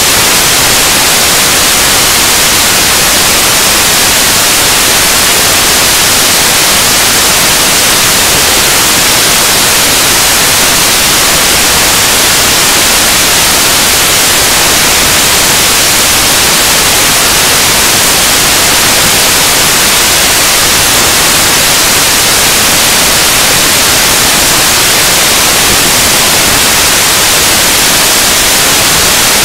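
Loud, steady hiss of white noise, like radio static, filling the sound track with no speech heard even though the presenters appear to be talking: the audio track is corrupted by noise.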